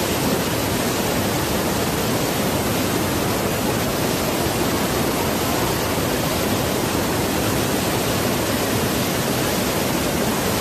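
Waterfall rushing: a loud, steady wash of water noise that does not change.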